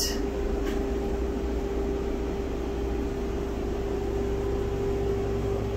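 Steady mechanical hum, a low rumble with one constant tone running through it, like a building's air-conditioning or ventilation unit running.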